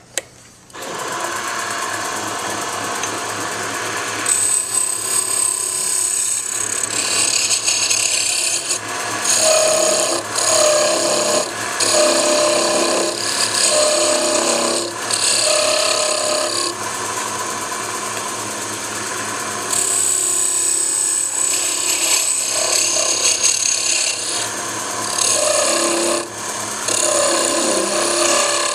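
Wood lathe running steadily after starting up about a second in, with a skew chisel cutting the spinning wood blank from about four seconds in. The scraping cut comes and goes in repeated passes with short pauses as the blank is shaped into a taper.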